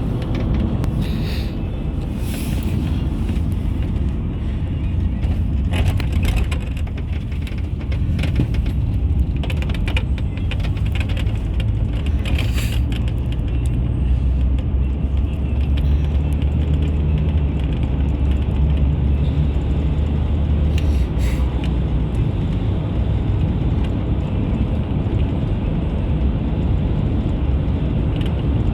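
Steady low road and engine rumble of a car being driven, with a few brief bursts of hiss.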